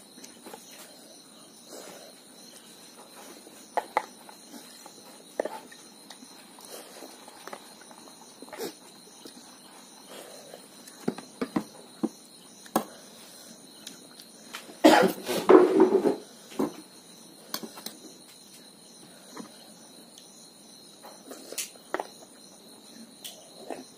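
Eating sounds: a metal spoon clinks and scrapes against a steel tin, a steel plate and a plastic bowl in scattered sharp clicks, with a short louder burst about fifteen seconds in. Under it runs a faint steady high chirring of crickets.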